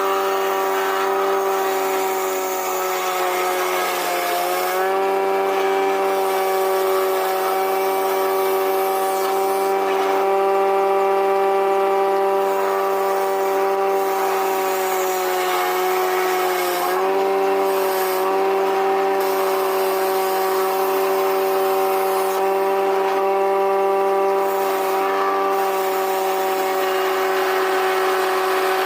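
An electric woodworking power tool's motor running steadily at a high, even pitch. The pitch sags briefly about four seconds in and again near the middle, as the tool takes load while cutting wood.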